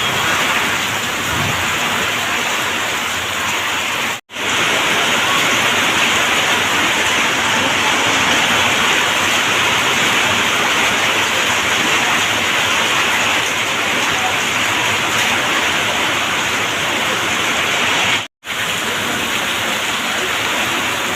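Heavy rain pouring steadily, a dense even hiss, cut off by two brief silent dropouts, about four seconds in and near the end.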